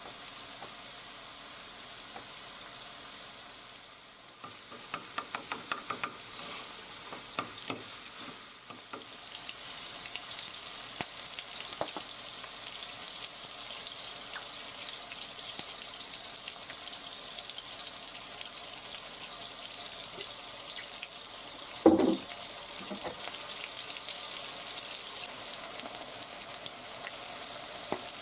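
Food sizzling in a frying pan while it is stirred, with a run of utensil scrapes and clatters in the first half and one sharp knock of a utensil against the pan about two-thirds of the way through.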